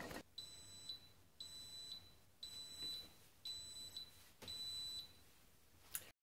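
Five high electronic beeps from a Cuisinart Brew Central coffee maker, one each second, each about half a second long, the signal this machine gives when brewing is complete. A short click follows the beeps just before the sound stops.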